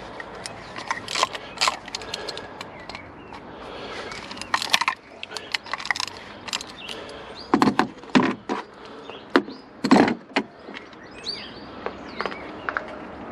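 Socket ratchet clicking in short runs, with metal clinks and knocks, as the four bolts of the thermostat housing on an old BMW N47 water pump are undone by hand.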